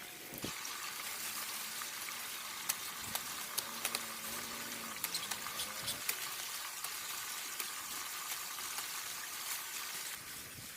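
Electric grinder cutting overgrown cow hoof horn: a steady hiss with frequent small crackles over a faint steady motor whine.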